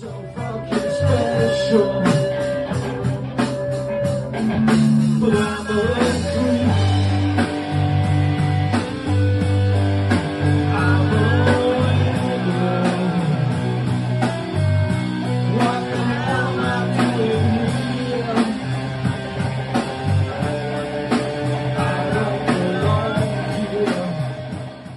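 Live rock band playing: a man singing into a microphone over electric guitars and a drum kit, at a steady loudness.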